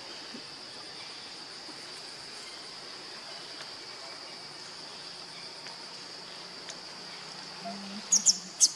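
Steady high drone of insects, with three sharp, very high squeaks close together near the end.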